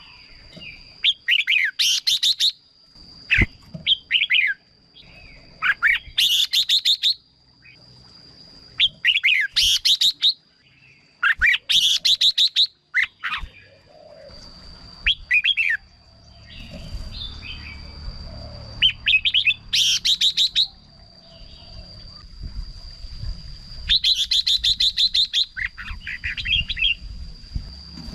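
Red-whiskered bulbul singing: short, loud, rapid warbling phrases repeated every couple of seconds. A steady high thin tone runs underneath, and a low rumble comes in about halfway through.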